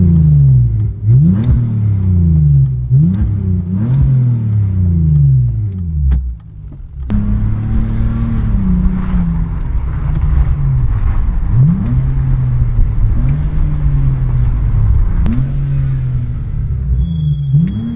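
BMW E46 320Ci's 2.2-litre straight-six running through an exhaust with the rear muffler cut out, free-revved in quick blips that rise and fall. After a short break about six seconds in, it idles with a few more blips.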